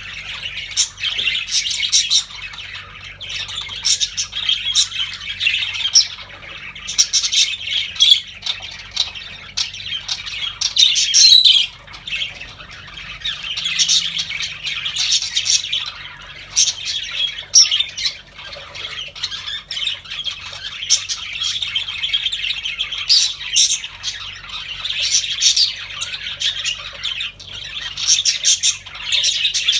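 A group of budgerigars chattering and chirping without pause: a dense warble with many short, sharp squawks and calls.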